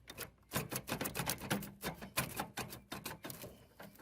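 Rapid, irregular metallic clicking and knocking as a riding mower's axle and its parts are worked loose from the bushing by hand, several clicks a second, thinning out near the end.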